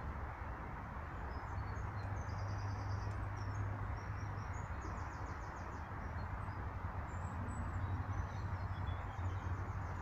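Small songbirds giving faint, short trills and chirps several times, over a steady low rumble of background noise.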